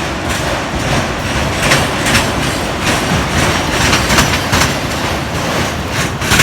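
Railcars of a passing train rolling by, wheels clacking over the rail joints at irregular intervals over a steady rumble.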